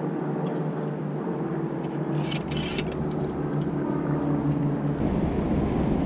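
Outdoor background noise on an action camera's microphone while an angler handles his rod and bait, with a brief crinkling rustle about two and a half seconds in. From about five seconds in a louder low rumble of wind and handling noise on the microphone begins as he walks.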